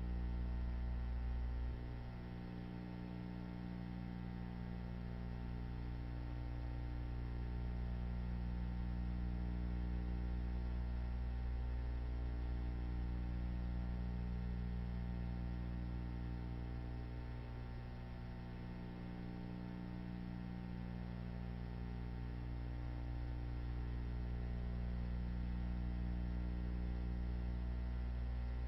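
Steady low electrical mains hum with a faint hiss, the noise floor of an old film soundtrack with no music or effects. A slight regular dip recurs about every five or six seconds.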